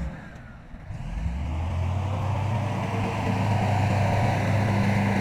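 Heavy diesel engine of earthmoving machinery running with a steady low drone; it is quiet at first and swells up over the first second or two.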